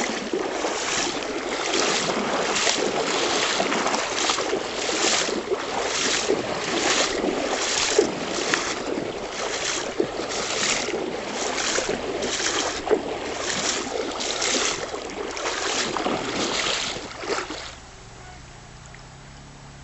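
A person walking at a steady pace, each step a loud swish, about one a second, over a steady rush of river water. The steps stop abruptly near the end, leaving only a quieter low background.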